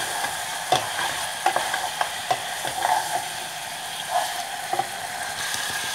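Boiled bone-in meat and crushed garlic sizzling as they fry in ghee in a pot, stirred with a wooden spoon that knocks against the pot now and then.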